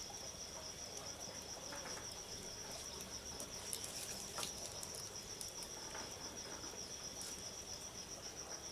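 Insects chirping in a steady, evenly pulsing high trill, with a few faint pops and crackles from a bamboo campfire.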